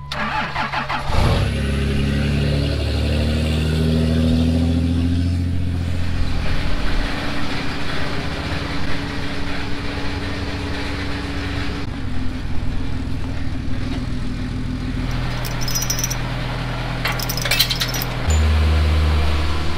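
Vehicle engines running, one revving up about a second in and then holding steady, with a few sharp clinks near the end.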